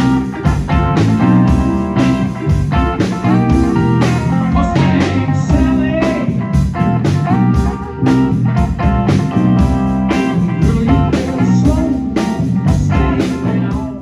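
Live blues-rock band playing: electric guitars over a drum kit keeping a steady beat. The music cuts off suddenly at the end.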